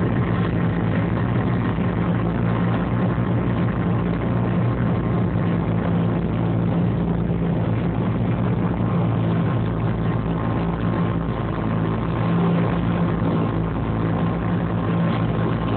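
Piper Chieftain's twin six-cylinder Lycoming piston engines and propellers running steadily at a constant pitch, heard from inside the cabin.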